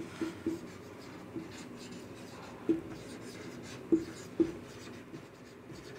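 Marker pen writing on a whiteboard: faint scratchy strokes, with several short ticks as the tip meets the board.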